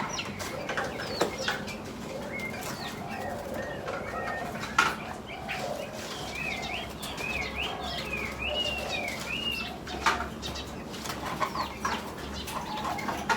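Birds in an aviary: repeated low dove-like cooing, wing flaps and sharp clicks. A songbird gives a wavering whistled phrase in the middle.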